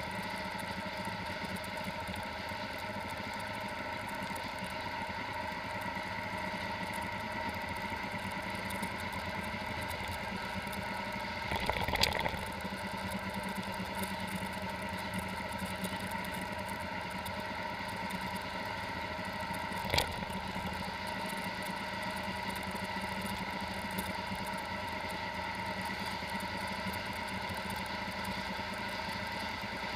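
Motorcycle engine running at a steady cruising speed, heard from a camera mounted on the bike, with a haze of road and wind noise. A sharp knock comes about twelve seconds in, and a shorter one about eight seconds later.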